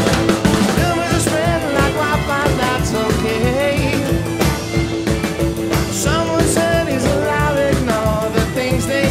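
Background music: a song with a sung melody over a steady drum beat.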